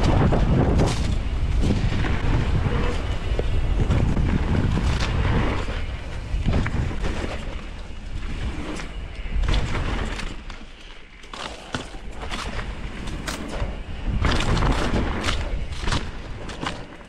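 Electric mountain bike being ridden over a rough trail: wind buffeting the microphone and tyres rolling, with many sharp knocks and rattles from the bike over bumps. It eases off for a moment about ten seconds in, then picks up again.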